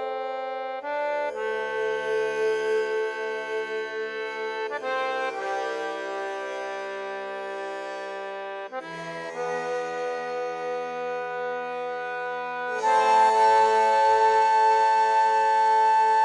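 Music of held, reedy accordion-like chords, each sustained for about four seconds before changing to the next, growing louder and brighter near the end.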